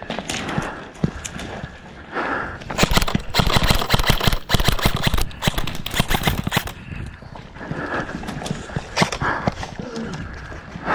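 Airsoft guns firing: rapid strings of sharp clacks, thickest in a run of a few seconds through the middle.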